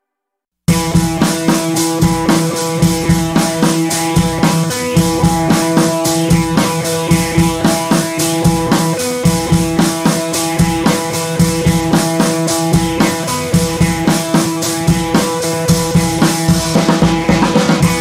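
Background music with a steady drum beat and sustained held tones, starting abruptly under a second in after a brief silence.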